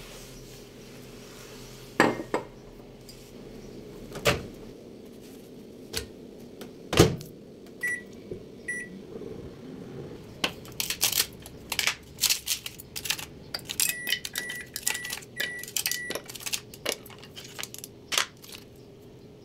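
Kitchen handling sounds: a few sharp knocks on a countertop, then a microwave oven's keypad beeps (a pair, and later a quick row of five) amid a run of clicks and clatter.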